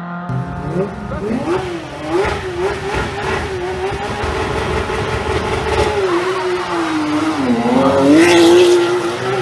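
Rally car engine revving hard, its pitch rising and falling through the gears, with a few sharp cracks early on; the pitch dips and then climbs back up near the end, where it is loudest.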